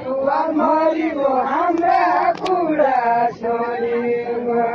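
A large crowd of villagers singing a chant-like folk song in unison, many voices overlapping over a steady held note.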